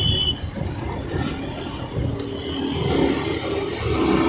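Yamaha R15M's single-cylinder engine running under way in traffic. The note falls off about half a second in and builds back up around three seconds in, with a short high-pitched beep right at the start.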